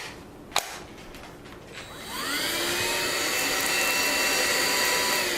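A click, then about two seconds in the Craftsman V20 cordless stick vacuum switches on, its motor whining up in pitch and then running steadily. It is running on the smaller battery pack, which is not fully charged.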